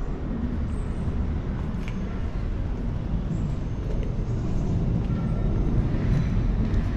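Steady low rumble of outdoor city ambience, growing gradually louder through the second half.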